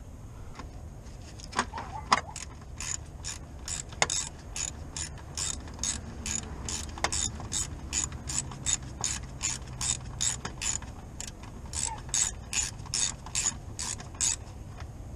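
Socket ratchet with a 10 mm socket clicking steadily as a bolt is backed out, about three clicks a second, with a few sharper knocks in the first few seconds.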